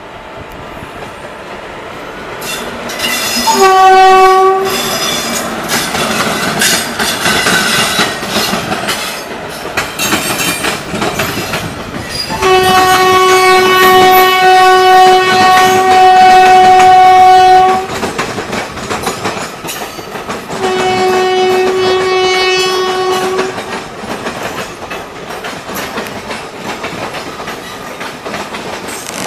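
Indian Railways locomotive horn sounding three times on one steady note: a short blast about four seconds in, a long blast of about five seconds near the middle, and a shorter one a little later. Under it runs the steady rumble and clickety-clack of a moving passenger train's wheels over the rail joints, heard from the open coach door.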